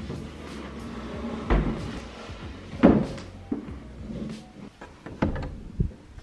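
Furniture being moved by hand: a large white desk panel knocking and bumping as it is shifted and tipped, with dull scraping in between. There are about six separate knocks, the loudest about three seconds in.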